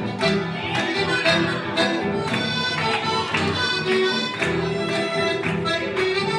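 Live chamamé played on accordion and acoustic guitar: accordion melody and chords over a steady beat of about two strokes a second.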